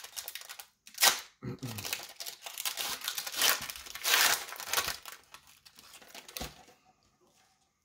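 Foil trading-card pack wrapper torn open with a sharp rip about a second in, then crinkled and rustled as the cards are pulled out, fading out near the end.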